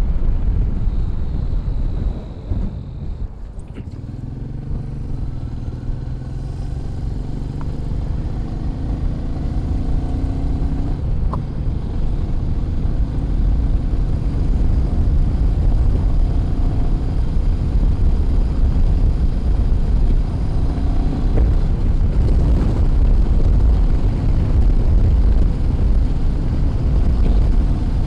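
Royal Enfield Meteor 350's single-cylinder engine running at road speed under a heavy low rumble of wind on the microphone. The engine note drops briefly about two seconds in, then climbs steadily over the next several seconds as the bike speeds up, and runs on evenly after that.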